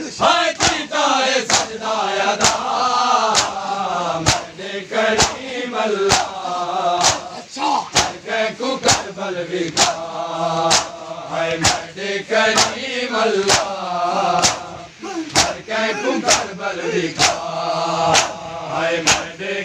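Men's voices chanting devotional verse together, kept in time by a sharp percussive beat about once a second.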